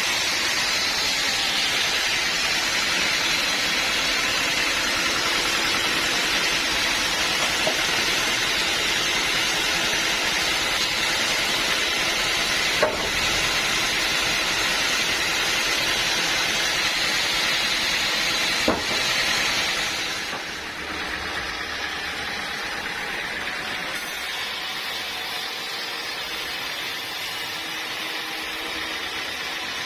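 Bandsaw mill sawing a teak log: a steady hissing cut noise with two sharp clicks, dropping to a quieter steady running sound about two-thirds of the way through.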